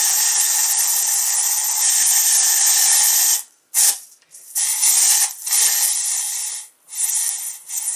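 CO2 gas hissing out of the 12-gram CO2 cartridge in a Remington 1875 replica air pistol as the cartridge is backed off to drain it. A steady, loud hiss cuts off about three and a half seconds in, then comes back in four or five short spurts as the wrench is turned bit by bit.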